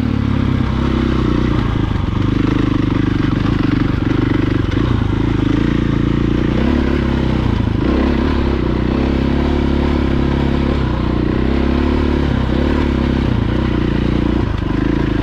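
Dirt bike engine running steadily at a constant pace while riding a rough dirt track, with a few light knocks and clatter from the bike over the rocky ground.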